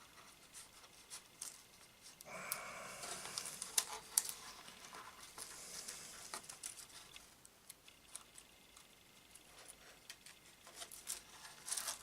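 Strips of clear polyester film being pushed through slots in a mount board: faint crinkling and rustling with small clicks, denser rustling from about two to four and a half seconds in.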